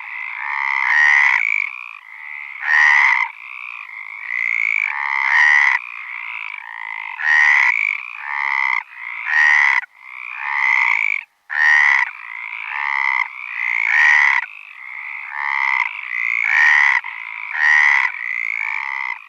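Green frogs calling in a chorus: loud croaks repeating about once every second or so, overlapping a steadier, higher calling underneath, with a very brief gap a little past the middle.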